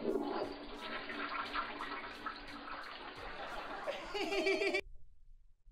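Japanese combination toilet flushing, with water running from the tap on top of the tank into the small hand-wash basin that refills the cistern. About four seconds in the sound cuts to a brief burst of laughter, then near silence.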